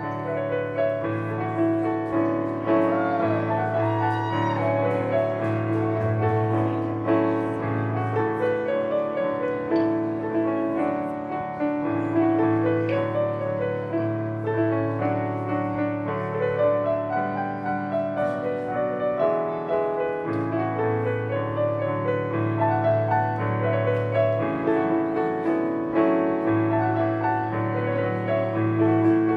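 Live band music led by an electric keyboard playing sustained chords and a melody over a steady bass line.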